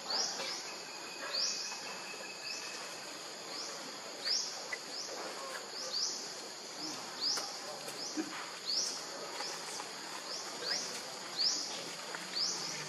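Outdoor ambience: short, high chirps, each rising quickly in pitch, repeat about once a second over a steady hiss.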